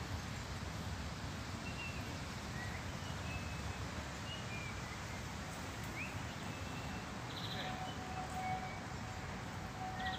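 Outdoor park ambience: a steady wind rumble with small birds chirping now and then, short chirps and quick trills. About three-quarters of the way in, a steady faint tone comes in and holds.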